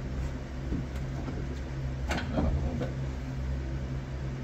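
Handling noises as fibrous padding is pushed into a car body cavity by hand: a few small clicks, the sharpest about two seconds in, over a steady low hum.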